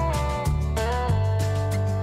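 Background music: a guitar-led track with bass and a steady beat, with a couple of notes bent upward in pitch.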